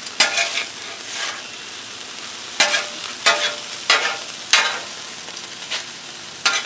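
Oil sizzling on a hot flat-top griddle under oil-dipped corn tortillas, a steady hiss broken by about seven short, louder bursts of sizzle and scraping as metal tongs lift and set the tortillas.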